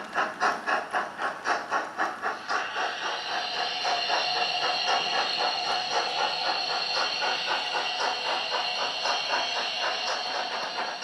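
Digital sound decoder in a model steam locomotive playing recorded LMS Black 5 steam sounds: exhaust chuffs at about four to five a second, joined about two and a half seconds in by a steady hiss of steam that carries on with the beats softer beneath it.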